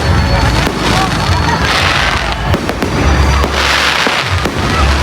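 Fireworks going off continuously and loudly: low booms throughout, with a burst of crackling shells about every two seconds.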